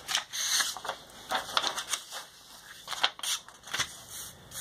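Sheets of thick paper being picked up and slid across a tabletop, rustling in several short bursts.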